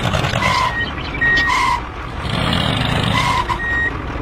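Reversing alarm beeping: four short beeps in two pairs, over a steady rumble.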